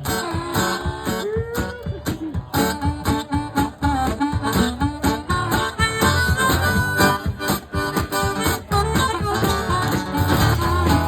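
Blues-style harmonica playing over guitar with a steady low bass line: an instrumental break between verses of a country song.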